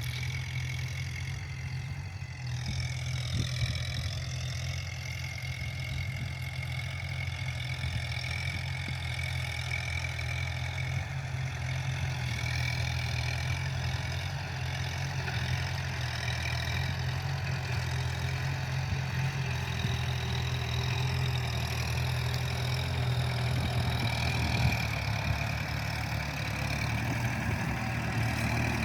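Kubota tractor's diesel engine running steadily while ploughing, a deep steady hum with a higher whine above it. About three seconds in, the whine dips and comes back.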